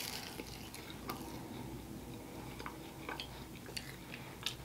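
A person chewing a mouthful of baklava: faint, scattered crunches of the crisp phyllo pastry between quieter chewing.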